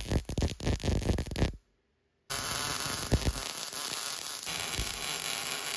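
Budget 3-in-1 MIG welder's arc crackling and hissing as a bead is run on steel plate. It cuts out suddenly about a second and a half in, then comes back after a short silence as a steadier hiss with a couple of sharp clicks.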